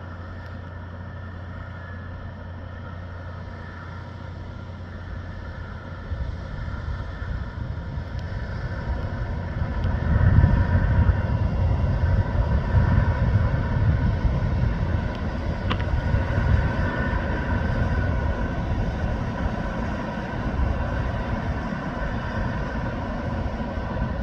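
Starship launch pad ground systems venting and running: a steady hiss with a constant hum of several tones over it, and a low rumble that builds about six seconds in and is loudest from about ten seconds.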